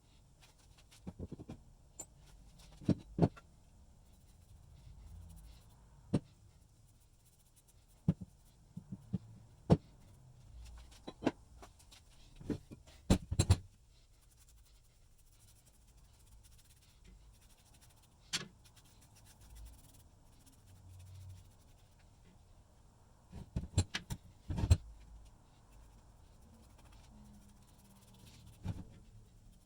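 Vise parts and hand tools handled on a workbench: scattered sharp clicks and knocks, with quick clusters about halfway and about three quarters through.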